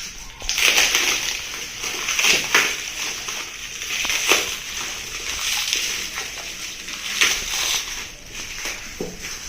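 Rustling and scraping of packaging and table parts being handled during an unboxing, with several sharper scrapes along the way.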